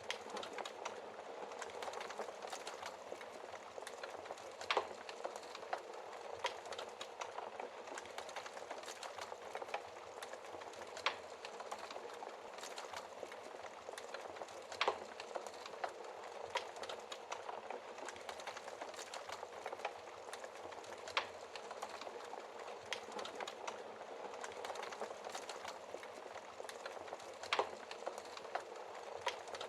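Wood fire crackling steadily, with a dense run of small ticks and a few louder sharp pops every several seconds.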